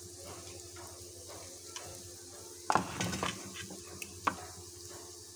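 A metal spoon scraping and clinking against a ceramic plate as cooked cauliflower filling is scooped up, with the loudest clinks about halfway through and a sharp one near the end. Underneath is a steady faint sizzle of a paratha frying on the griddle.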